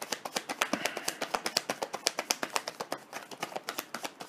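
A deck of tarot cards being shuffled by hand: a rapid run of light card clicks, about ten a second, trailing off near the end.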